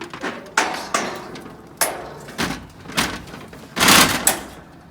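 A series of sharp knocks and bangs, about seven in all, the loudest about four seconds in.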